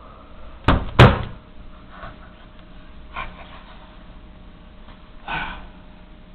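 Two sharp knocks about a third of a second apart, the second louder, then a few fainter clatters.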